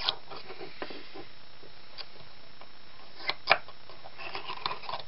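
Small metal parts of a dismantled window corner drive being handled and set down: a few sharp clicks and knocks, the loudest about three and a half seconds in, then a quick run of light clicks near the end.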